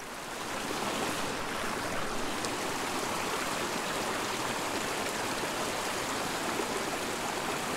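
A small mountain creek running, water spilling over a little rocky cascade in a steady rush.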